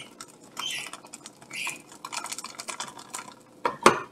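Metal spätzle press being squeezed over a pot of boiling water: scratchy crackles and rapid light clicks as the dough is forced through the holes, with two sharper metallic clicks near the end.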